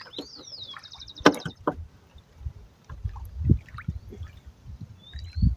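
Water sloshing and splashing in a few uneven swells as shrimp are netted and handled in the water, with a couple of sharp knocks in the first two seconds. Small birds chirp and give a short rapid trill in the first second or so.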